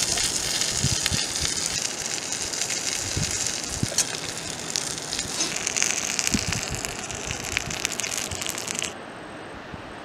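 Fried chicken and egg sizzling and crackling in a skillet over a camp gas stove, with many small pops over a steady hiss. It cuts off sharply near the end, leaving a quieter outdoor background.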